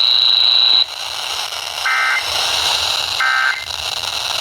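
Two short, identical bursts of two-tone Emergency Alert System data, the end-of-message code that closes a warning broadcast, about a second and a half apart over steady radio hiss. A thin high steady tone cuts off just under a second in.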